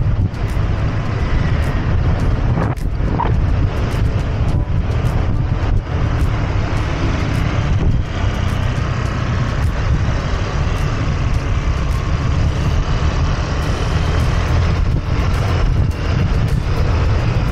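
Riding a motorcycle: a steady low rumble of wind on the small action camera's microphone, over engine and road noise.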